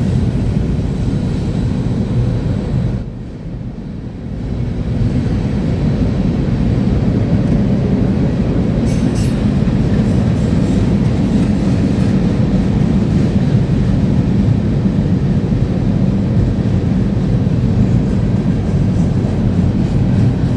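CSX manifest freight train rolling past, a steady rumble of cars on the rails. The rumble dips briefly about three seconds in, then carries on.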